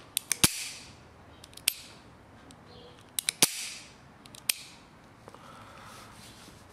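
Stainless Smith & Wesson 686-3 .357 Magnum revolver dry-fired in double action: sharp metallic clicks of the cylinder turning and locking and the hammer falling. The clicks come in two quick groups of three about three seconds apart, each followed by a single click about a second later.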